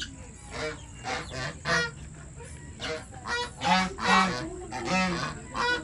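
Domestic geese honking repeatedly, about ten short honks in irregular clusters, the loudest around the middle.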